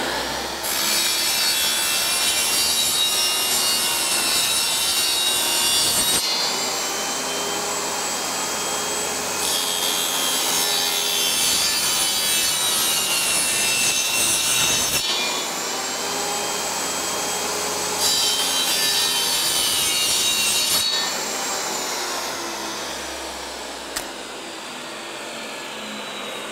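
Ridgid benchtop table saw running while its blade cuts an engineered hardwood flooring plank in three passes. In the last few seconds a falling whine trails off slowly; the saw has no blade brake, so it coasts down after switch-off.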